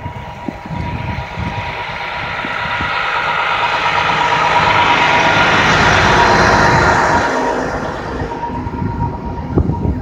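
Vehicle and road noise heard from a car, swelling to a peak around the middle and fading again, with a thin steady whine underneath.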